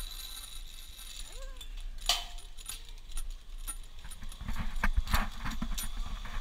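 Footsteps and knocks on a steel mesh platform, with metal clinks from harness carabiners: one sharp clink about two seconds in, then a run of knocks and clinks in the last two seconds.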